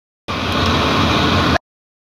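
Steady bus cabin noise with a low engine or ventilation hum, starting and stopping abruptly.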